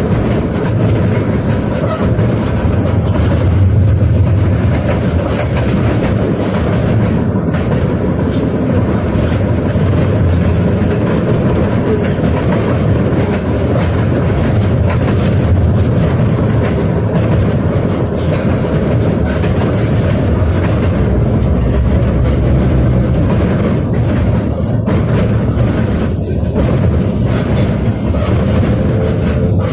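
Cabin noise of a KTM-28 (71-628-01) tram running at speed: a steady low rumble of the wheels and running gear on the rails.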